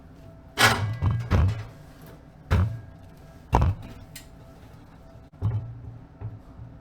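A series of sharp knocks and clunks, about six, spaced irregularly over several seconds, like hard objects being handled and set down.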